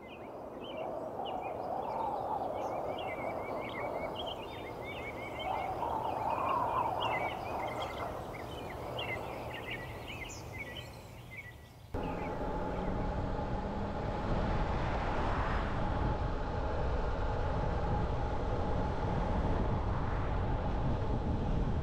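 Small birds chirping rapidly over low traffic noise. About twelve seconds in, the sound cuts abruptly to the steady road noise of a moving car, with a faint held hum.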